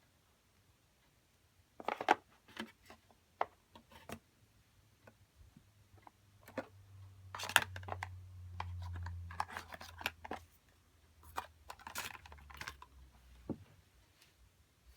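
Irregular clicks, taps and scrapes of hands handling packaging and small plastic parts while unboxing, with a low hum rising in the middle and fading out.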